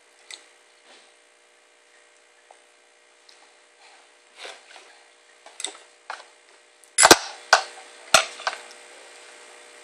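A baby's spoon and hands clicking and knocking against a small glass bowl on a plastic high-chair tray. Light scattered taps come first, then three sharp, loud knocks about seven to eight seconds in.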